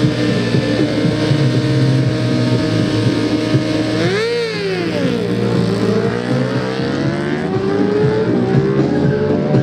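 Sport motorcycles on a drag strip, engines held at steady high revs on the start line, then launching about four seconds in. The engine pitch climbs and drops repeatedly through gear changes as they accelerate away.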